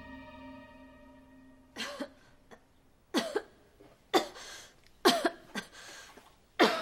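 A woman coughing in a series of short fits, about seven coughs in all, some single and some in quick pairs, starting about two seconds in.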